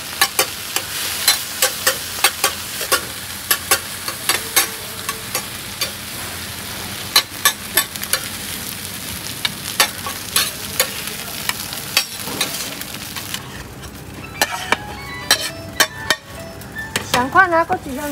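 Oyster omelette sizzling in oil on a large flat wok while a metal spatula scrapes and clacks against the pan many times. About two-thirds of the way through the sizzle drops away.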